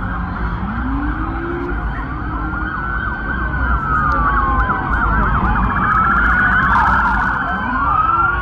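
Many police car sirens wailing at once, their rising and falling tones overlapping, with a faster yelping siren about two-thirds of the way through, over a steady low rumble.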